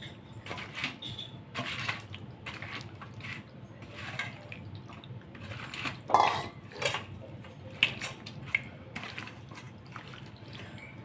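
Chicken pieces being squished and mixed by hand in a wet egg-and-cornflour marinade in a stainless steel bowl: irregular wet squelches, with a few sharper knocks of the steel bowl, the loudest about six seconds in.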